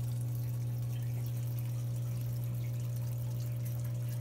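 Aquarium air pump giving a steady low hum, with the small bubbling and dripping of the sponge filter it drives.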